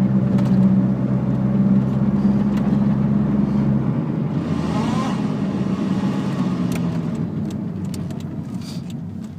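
A 1995 Honda Civic DX automatic running on the road, with a steady low drone. About four seconds in the deepest hum drops away and a brief tone rises and falls. The sound then tapers off toward the end.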